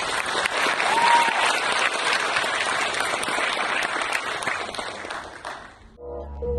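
Audience and graduates applauding, a dense patter of many hands clapping, which cuts off suddenly near the end.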